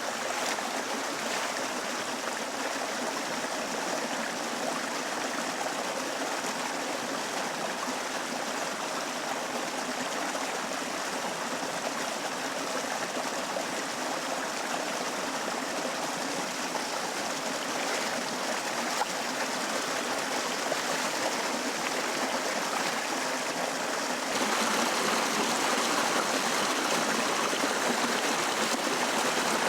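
River water running steadily, turning suddenly louder near the end.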